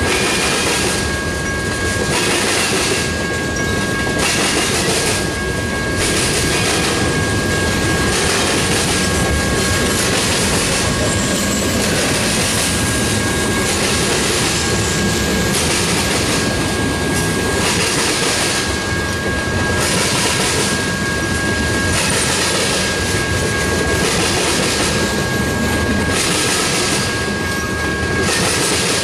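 Freight cars of a long train, tank cars and covered hoppers, rolling past close by: a steady loud rumble of steel wheels on rail with a regular clickety-clack as the trucks cross the rail joints. A thin high tone comes and goes over it.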